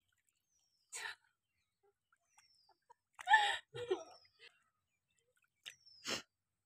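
Scattered short sounds: brief splashy rustles as rice seedlings are pulled from the flooded paddy mud, about a second in and again near the end, with the loudest burst a little past the middle. Several thin, falling bird chirps recur through it.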